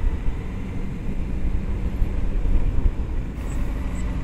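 Motorcycle being ridden at road speed: a steady low engine hum under wind and road noise.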